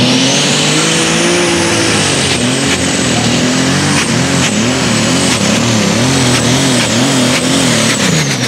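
Light super stock pulling tractor's engine at full throttle hauling the sled down the track: the engine note climbs as it launches, then wavers up and down about twice a second under load, with a high whine over it. Both the engine and the whine fall near the end.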